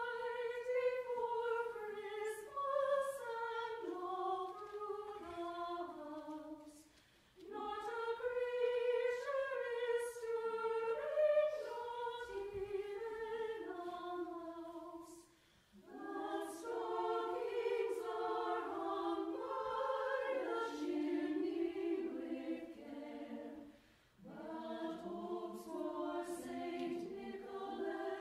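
Mixed choir of men's and women's voices singing a cappella in close harmony, in long phrases broken by brief pauses for breath about every eight seconds.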